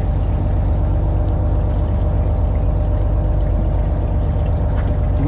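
Fishing boat's engine running with a steady low hum, while seawater runs from the deck hoses into the squid baskets.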